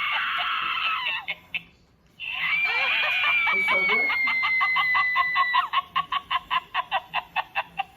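A Chucky Sidestepper animatronic doll's small built-in speaker playing its tinny, distorted sound clip between its spoken lines. A dense screechy passage breaks off about two seconds in. It starts again with a long held high note, then turns into quick pulses about four a second.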